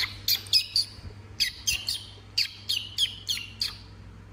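Baby squirrels squeaking: about a dozen short, high-pitched chirps, each falling in pitch, in quick runs of three or four.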